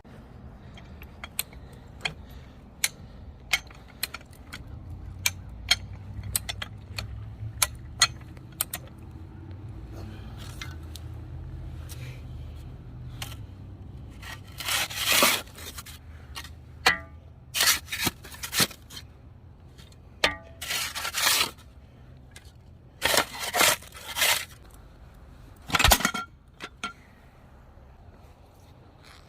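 Bonfire crackling, with sharp scattered pops at first and then several louder crackling bursts of about a second each in the second half.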